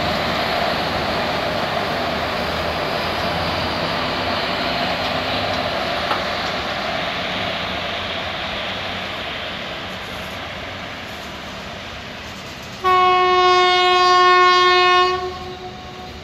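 Container train hauled by two WAG-5 electric locomotives rolling past, a steady rumble of wheels on rail that slowly fades as the wagons go by. About thirteen seconds in, a loud single-note train horn sounds for about two seconds, then stops.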